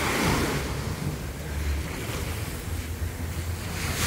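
Small waves breaking and washing up on a sandy beach, with a swell of surf near the start. Wind buffets the microphone with a low rumble.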